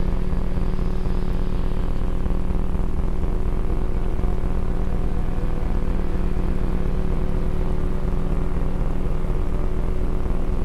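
Steady, unchanging low rumble and hiss with a constant low hum running through it, like a continuous ambient drone.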